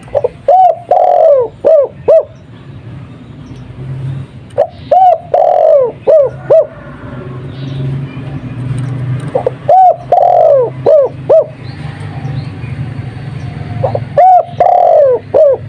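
Spotted dove (tekukur) of the Madura 'kuk 2' song type cooing its song four times, each phrase about two seconds long: a short coo, a longer one, then two short closing notes. The phrases come about every five seconds and are loud.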